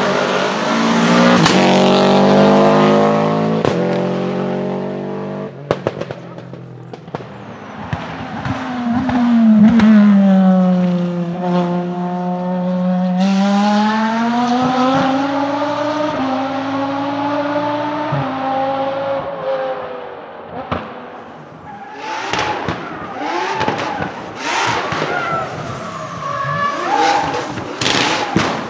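Racing car engines at high revs. Early on the pitch climbs through several quick upshifts; later it dips and rises again as the throttle is lifted and reapplied. Near the end there is crackling with sharp exhaust pops.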